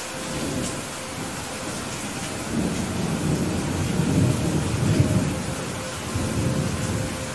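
Rolling thunder over steady heavy rain. The low rumble builds from the start, is loudest about four to five seconds in, and dies away near the end.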